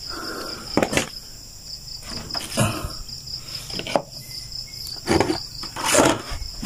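Night insects chirping in a steady, rapidly pulsing high trill. Several knocks and thumps from things being handled on a wooden floor break in, the loudest about a second in and near the end.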